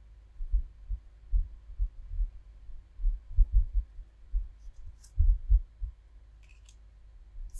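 Irregular dull, low bumps and knocks of hands handling a stack of Pokémon trading cards over a wooden tabletop, with a few faint card flicks about five and six and a half seconds in.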